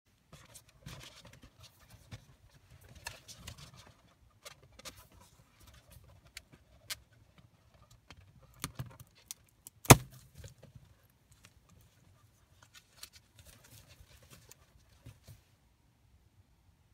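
Scattered rustling and small clicks from latex balloons being handled, then a single loud, sharp pop of a latex balloon bursting about ten seconds in. The balloons are month-old and weak.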